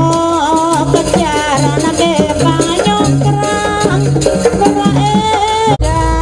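Live jaranan ensemble music from East Java: an ornamented, wavering melody over a repeating drum pattern and rattling percussion. It breaks off sharply near the end and comes back with heavier bass.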